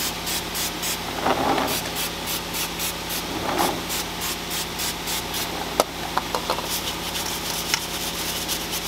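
Scrubbing brush worked over a car's brake caliper wet with wax and grease remover, in quick repeated scratchy strokes a few times a second, to degrease it before painting. One sharp click a little past the middle.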